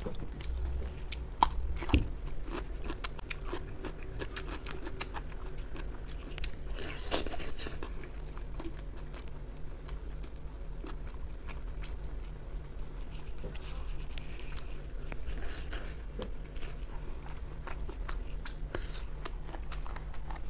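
Close-miked chewing of braised meat and cartilage pulled off the bone, with many short crisp clicks and crunches.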